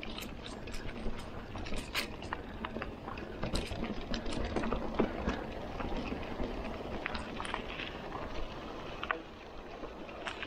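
Mountain bike rolling over a dirt and gravel trail: tyre crunch and rumble with many scattered sharp clicks and rattles from the bike and loose stones.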